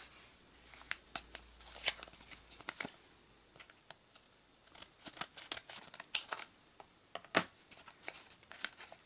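A paper mailing envelope being handled and opened: scattered crisp paper rustles and snaps, in two clusters, with one sharp snap about seven seconds in.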